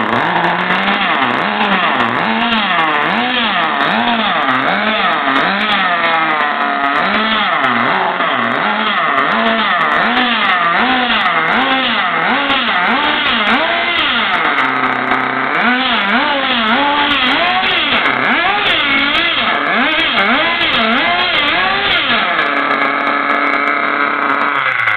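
Small nitro (glow-fuel) engine of a vintage SG Futura V RC car running loud, revved up and down in quick repeated blips, about one and a half a second, with steadier stretches around the middle and again near the end.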